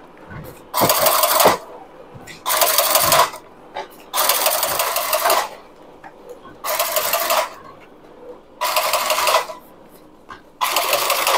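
Carton stitching machine driving wire stitches into the seams of corrugated cardboard boxes, in six short bursts about two seconds apart.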